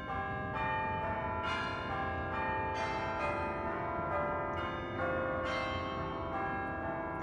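A run of bell notes struck one after another, a new note every half second to a second, each ringing on and overlapping the next like a peal of chimes.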